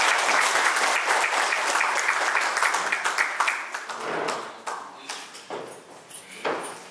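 Audience applause from a roomful of seated people, full and steady at first, then thinning after about four seconds into scattered claps that die away.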